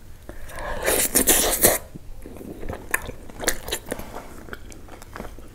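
Close-miked eating: a loud bite into a piece of mutton in thick curry gravy about a second in, followed by chewing with wet mouth clicks and smacks.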